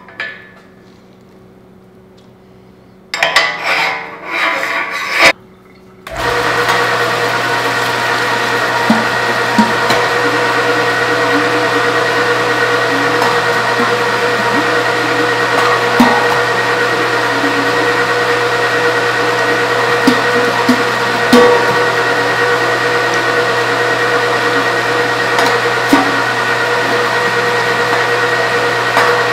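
Fabio Leonardi MR9 TC22 electric meat grinder starting about six seconds in and running steadily with a steady hum, grinding tomatoes and vegetables through the disc. A few small knocks come as chunks pass through. Before it starts there is a couple of seconds of loud clatter.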